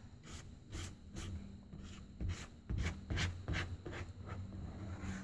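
Epoxy putty being mixed on cardboard with a small plastic tool: repeated, irregular scraping and rubbing strokes, roughly two a second, as the paste is worked together with its hardener.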